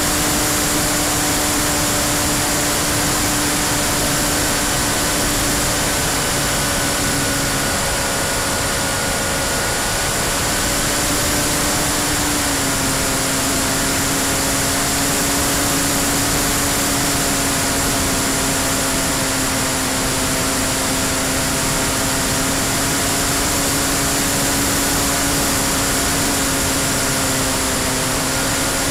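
Electric motor and propeller of a Freewing P-51D foam model plane in flight, heard from a camera on the fuselage: a steady whine over a heavy rush of air. The pitch steps slightly lower about twelve seconds in, as the throttle is eased back.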